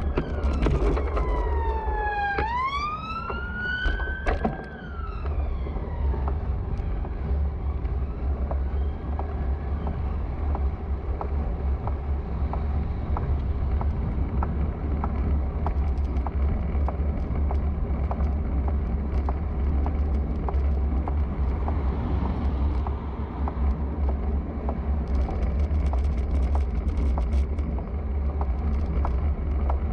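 Police siren wailing, its pitch sliding up and down for the first few seconds and then fading away. Under it and for the rest of the time, a steady low wind rumble on the bike camera's microphone from riding, with faint ticks from the bike.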